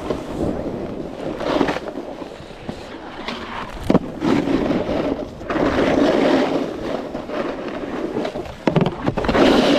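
Snowboard sliding and scraping over snow, the rushing swelling and easing as the edges dig in, with a sharp knock about four seconds in and another near the end.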